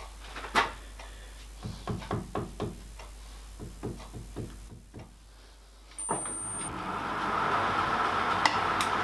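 Metal lathe: a series of clicks and knocks as it is set up, then about six seconds in the motor is switched on and the spindle runs steadily with the boring tool in a brass eccentric strap for a spring cut.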